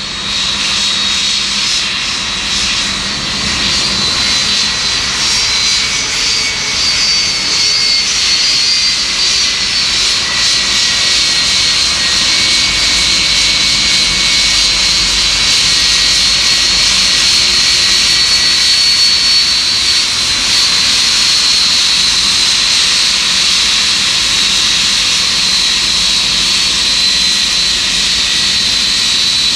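Boeing 757-200 jet airliner taxiing, its two turbofan engines running at taxi power with a steady high whine, growing louder over the first several seconds as the aircraft approaches.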